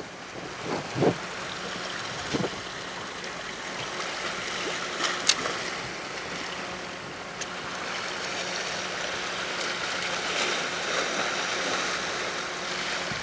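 Seawater washing and lapping, with wind on the microphone. Under it runs a steady low hum, and there are a few brief clicks and knocks in the first seconds and again about five seconds in.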